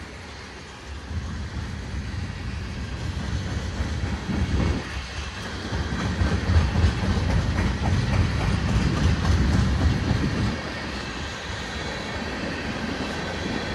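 Tank cars of a CSX freight train rolling past on the rails: a steady low rumble of wheels on track with irregular clicks. It swells toward the middle and eases a little near the end.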